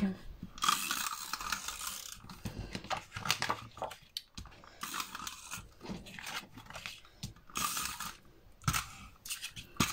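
Adhesive tape runner being rolled in repeated strokes over paper and card, with ratcheting clicks and scraping, mixed with paper being handled and pressed. The new roller runs out of adhesive by the end.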